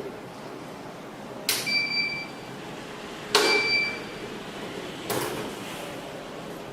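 Active 108 burglar alarm control panel beeping twice as day mode is activated. Each short beep starts with a sharp click, and a third click without a beep comes near the end.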